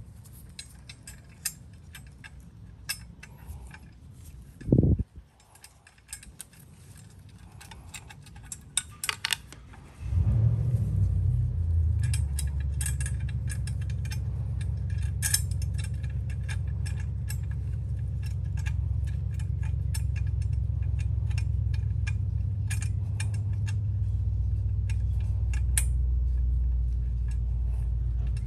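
Metal clinks and ticks of bolts, fittings and hand tools being handled while an engine guard is fitted to a motorcycle, with a dull thump about five seconds in. About ten seconds in a steady low rumble starts suddenly and carries on under the clinks, louder than them.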